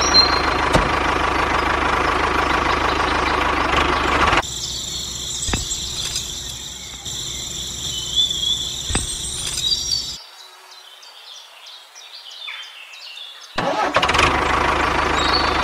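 Tractor engine sound running steadily, cut off about four seconds in. A quieter stretch of high hiss with a few sharp clicks follows, then near silence, and the engine sound returns near the end.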